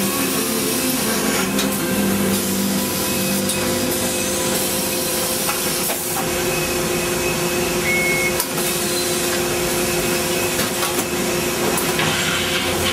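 Steady running hum and hiss of laundry machinery: an automatic shirt folding machine alongside steam pressing equipment, with occasional clicks.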